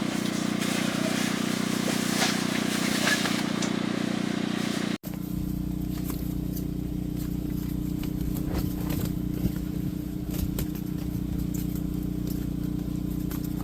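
Wind blowing across the microphone, with scattered clicks. After a sudden cut about five seconds in, a steady low hum follows, with occasional light clicks and knocks.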